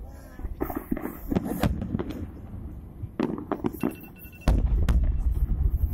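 New Year fireworks going off in a rapid series of bangs and crackles. A loud low rumble sets in about four and a half seconds in.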